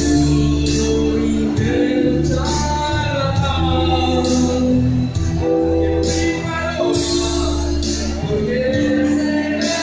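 A man singing a ballad into a handheld microphone, with live electronic keyboard accompaniment, amplified through PA speakers.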